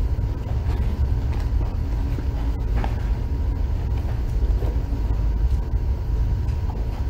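Steady low rumble of room background noise, with a few faint ticks and rustles.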